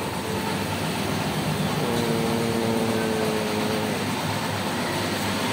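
Steady mechanical noise of tyre-shop machinery, with a steady held hum for about two seconds from around two seconds in, dipping in pitch as it stops.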